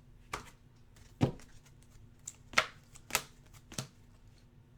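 Hoops basketball trading cards being handled and set down on a table: about five short, sharp taps and clicks at irregular intervals.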